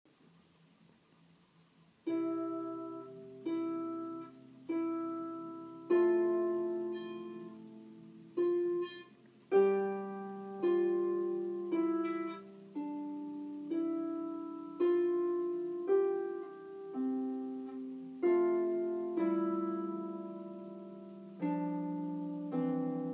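Solo harp, played slowly: single plucked notes and chords about a second apart, each ringing on and dying away. It starts about two seconds in, after faint room tone.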